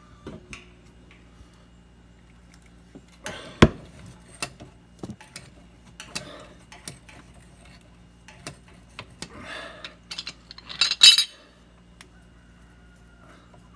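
Metal plumbing parts and tools being handled, clinking and knocking irregularly, with one sharp knock about three and a half seconds in and a burst of jangling about eleven seconds in.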